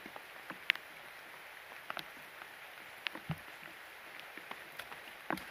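Steady rain falling, with scattered sharp ticks of drops striking close by at irregular intervals.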